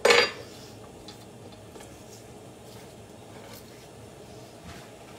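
A short clatter of a kitchen utensil right at the start, then low steady kitchen background noise with a few faint ticks.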